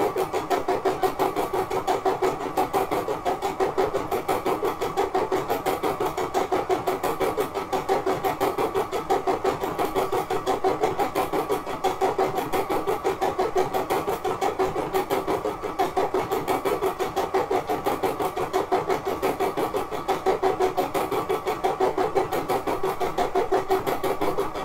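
Brother SE600 embroidery machine stitching a design: the needle running steadily with rapid, even strokes.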